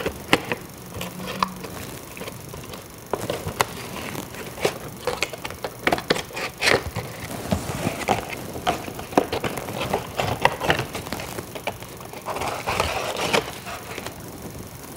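Cardboard doll box and its clear plastic tray being handled and opened: irregular crinkling, scraping and clicking of cardboard and plastic.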